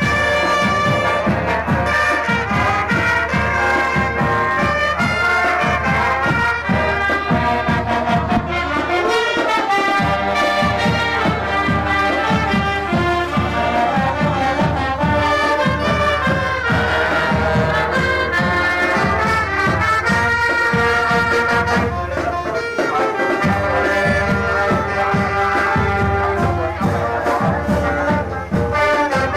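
Brass-led music with a steady beat.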